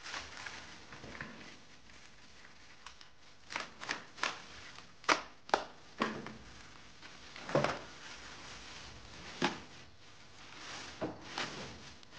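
Clear plastic wrapping crinkling and crackling as it is pulled off a subwoofer enclosure, in irregular sharp crackles with a few louder snaps.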